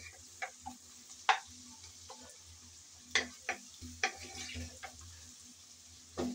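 Wooden spatula stirring sliced onions frying in oil in a wok-style pan: irregular scrapes and knocks against the pan over a faint sizzle, with a low steady hum underneath. The onions are being fried with whole spices toward light brown.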